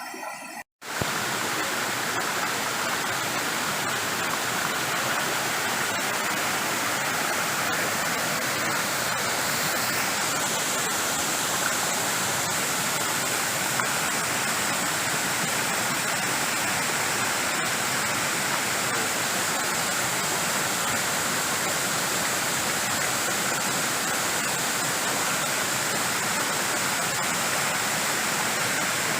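Waterfall pouring: a steady, dense rush of falling water. The sound cuts out for a moment just before one second in, then runs on unchanged.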